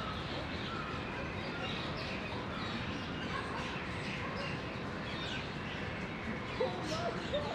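Many small birds chirping and twittering over a steady background hiss, with a few louder short calls near the end.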